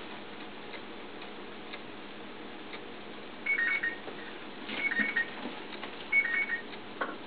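Electronic two-tone ringer trilling in short bursts about every second and a quarter, starting about three and a half seconds in. Before it, only faint room tone with a few light ticks.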